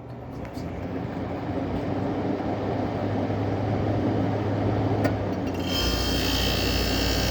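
GM Frigidaire window air conditioner starting up: the fan motor spins up to a steady run. About six seconds in, the compressor kicks on, adding a deeper hum and a high whine.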